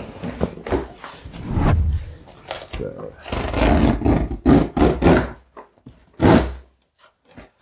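A large cardboard shipping box is handled and set down with heavy thuds. Packing tape is scratched at and torn off it in several short rips.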